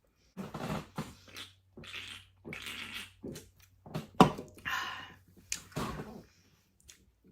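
A woman eating: a run of about six short, noisy mouth and eating sounds with brief pauses between them, the sharpest about four seconds in.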